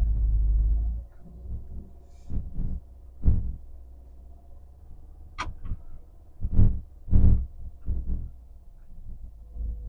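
Low, steady hum of a car heard from inside the cabin while driving, with a louder rumble in the first second. Irregular thumps come every second or so, the loudest near the middle.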